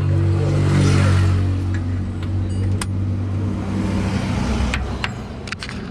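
Truck engine running at a steady idle, a low hum that eases off after about four seconds, with a few light clicks near the end.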